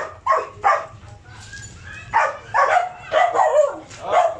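Dogs yipping and whining excitedly in a quick run of short calls, a few at the start and more from about halfway through, eager to be fed.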